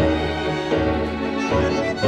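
Live music from a string orchestra with a bandoneón, sustained chords changing every second or less.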